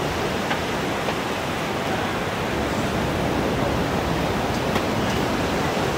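Steady rush of sea surf breaking on a beach.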